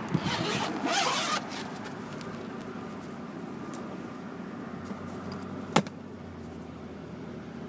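Zipper on a soft-sided pet crate being pulled open in a rasp of about a second and a half, followed by a single sharp click about six seconds in, over a steady low hum.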